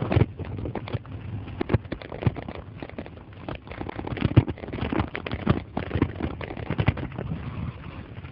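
Bicycle rattling and bumping over a rough gravel towpath, a dense run of irregular knocks and clatters.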